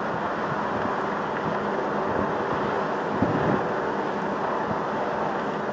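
Steady dockside rumble of idling ship and tugboat engines mixed with wind noise on the microphone, with a brief low knock about three seconds in.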